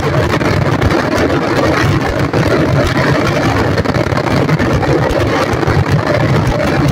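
Daytime fireworks barrage: many small aerial shells bursting in quick succession, their reports merging into a continuous dense crackle with no pauses.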